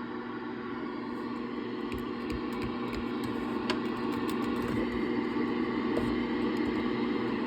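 Steady electrical hum with hiss and scattered faint clicks.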